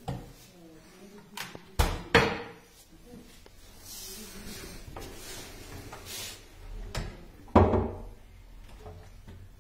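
Hinged laminated kitchen cabinet doors being swung open and shut, knocking against the cabinet frame: a cluster of knocks about two seconds in and two more near the end, the last the loudest.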